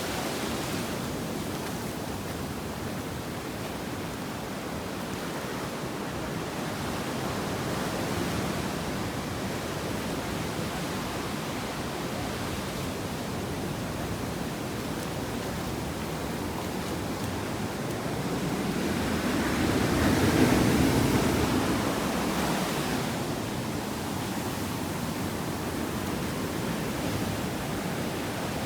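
Ocean surf washing steadily onto a beach, with one wave breaking louder about twenty seconds in.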